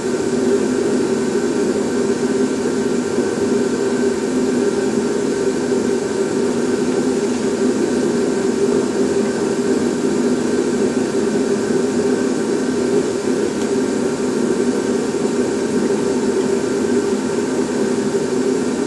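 Torpedo heater (forced-air shop heater) running with a steady, even noise.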